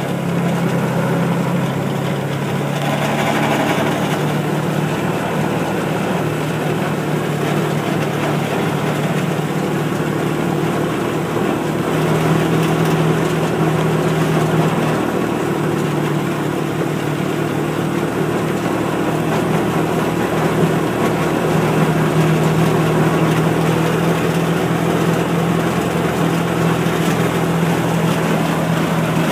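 The engine of a small farm vehicle, a "Rover", running steadily as it is driven along, an even hum that barely changes.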